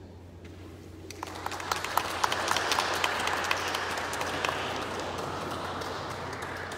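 Applause from a small audience. It starts about a second in with separate sharp claps, then thins out and slowly fades.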